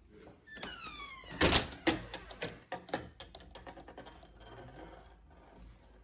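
A door knocking against a clip-on latch that holds it ajar: one loud thunk, then a run of lighter knocks and rattles. It comes just after a short falling squeal.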